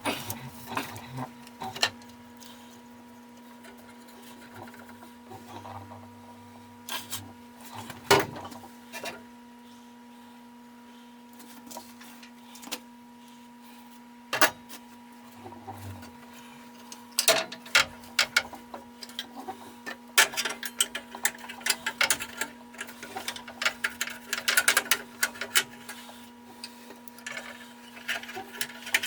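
Metal hand tools clicking, tapping and clattering during engine-bay work: sparse knocks at first, then a busy run of quick clicks in the second half, over a steady low hum.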